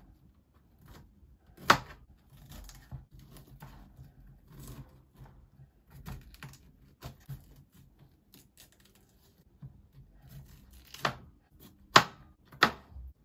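Knife cutting cauliflower into florets on a plastic cutting board: soft crunching and snapping of the stems, with a few sharp knocks of the blade on the board, one about two seconds in and three close together near the end.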